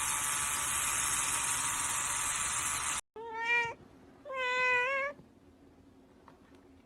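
A steady hiss that cuts off abruptly about three seconds in. Then a domestic cat meows twice, the second meow longer.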